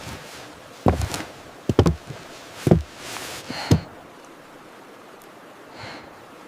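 Hiking boots striking the trail: four heavy footsteps about a second apart, followed by a quieter steady hiss.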